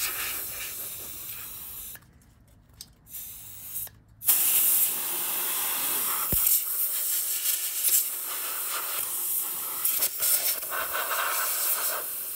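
Can of compressed air spraying into a Mac Pro tower's case to blow out dust: a two-second burst, a pause with a couple of short puffs, then near-continuous spraying from about four seconds in.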